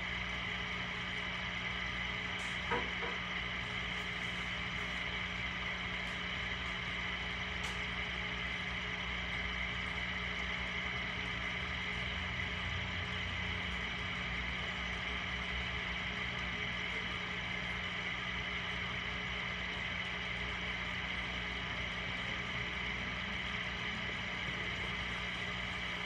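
Steady machine hum made of several held tones, with one faint click a little under three seconds in.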